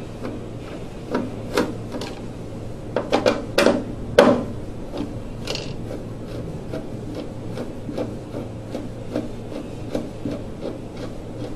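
Hands pulling hoses off a gas furnace's condensate trap and working the trap loose from the collector box: irregular rubbing and knocks, with a cluster of louder knocks about three to four seconds in.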